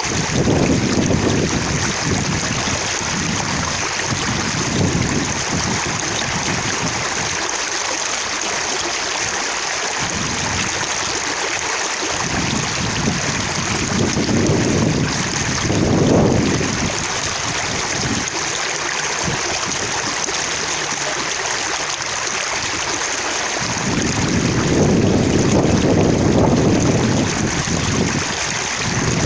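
Water running and splashing steadily, droplets spattering in a continuous rush. A deeper low rumble swells up briefly about 16 seconds in and again for several seconds near the end.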